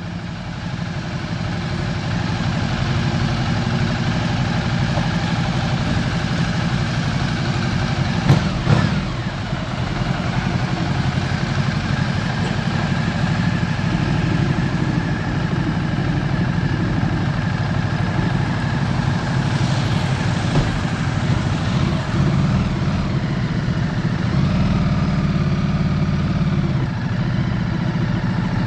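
Motorcycle engines idling steadily, with a brief knock about eight seconds in and a short rising whine around twenty seconds in.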